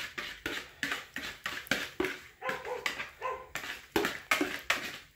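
A whisk scraping pie filling out of a mixing bowl in quick repeated strokes, about two or three a second, with a few short squeaks near the middle.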